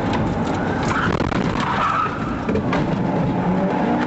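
A stolen police car being driven off hard: engine and tyre noise, with tyres squealing briefly about one to two seconds in.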